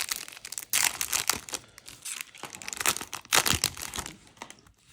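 Foil trading-card booster pack wrapper being crinkled and torn open, in irregular crackling bursts, the loudest about a second in and around three seconds in.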